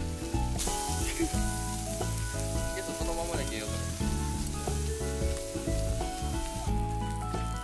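Squid sizzling as it grills in a hot pan. The sizzle starts about half a second in and stops abruptly near the end.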